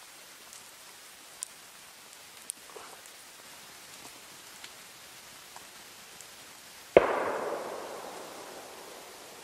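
Wood campfire crackling with a few small pops, then about seven seconds in a sudden loud crack followed by a rush of noise that dies away over a couple of seconds.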